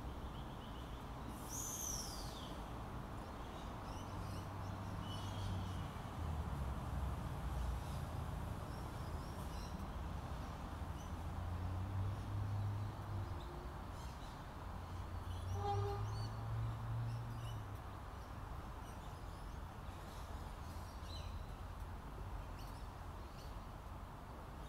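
Railway-station background: a low rumble that swells and fades a few times, with birds calling now and then, including one falling whistled call about two seconds in.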